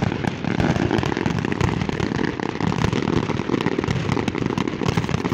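Aerial fireworks display going off in a dense, continuous barrage of overlapping bangs and crackles.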